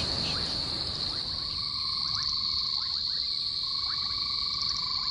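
Frogs and insects calling together. A steady high insect trill runs throughout. About a second in, a lower frog trill joins, along with a string of short rising chirps.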